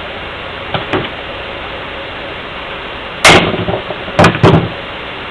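Loud metal bangs from a wrench working a tight 24 mm nut on a CAV diesel injection pump: two light clicks, then a sharp crack about three seconds in and two more cracks close together about a second later, as the nut breaks loose.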